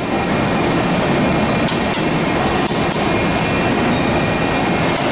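Steady workshop machine noise, with a few light metallic clinks from a socket and bar handle being worked on a ball screw assembly.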